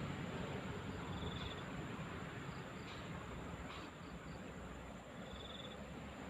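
Steady outdoor background noise with a low rumble, and twice a short, high, pulsed trill from an insect, about a second in and again near the end. Two faint clicks in the middle.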